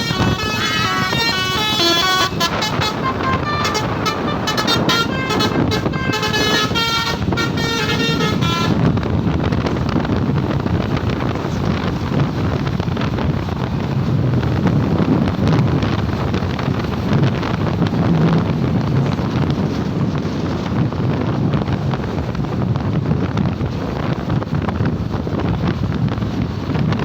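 Telolet bus horn playing a quick melody of stepped, jumping notes for about the first nine seconds, then stopping. What follows is the steady noise of the moving bus's engine and wind on the microphone.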